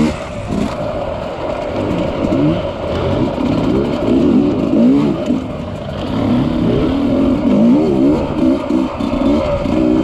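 Dirt bike engine running under load, its revs rising and falling again and again with the throttle over rough, rocky trail.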